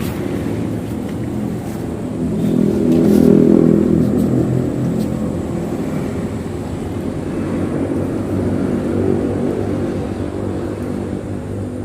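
A motor engine running steadily with a low hum. It grows louder around three seconds in and then slowly eases, like a vehicle or boat passing by.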